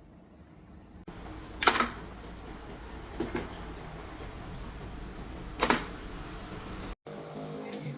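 Two sharp knocks about four seconds apart, with a couple of lighter taps between them, over a steady low background noise that starts about a second in; the sound drops out briefly near the end.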